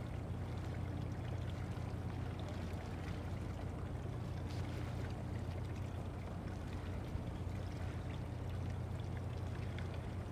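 Hyuga-class helicopter destroyer underway, giving a steady low drone over a continuous rush of water.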